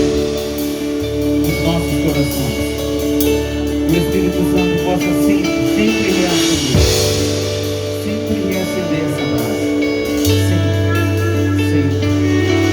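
Live band music: guitar and bass holding sustained chords and long bass notes.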